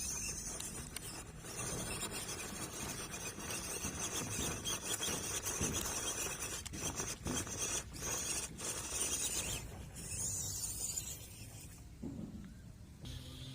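1:12 scale MN-99 four-wheel-drive RC car's small electric motor and gears whirring as it drives up a hill, with a rasping, scrabbling noise from the tyres and drivetrain; it eases off about ten seconds in.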